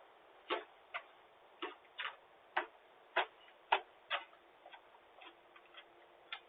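A run of short, sharp taps, about two a second and slightly uneven, picked up by a video doorbell's microphone. The taps are strongest for the first four seconds, then turn fainter and sparser.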